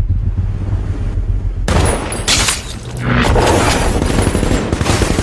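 Battle gunfire from soldiers' rifles: a low rumble, then under two seconds in heavy shooting breaks out and runs on as a dense, rapid stream of shots.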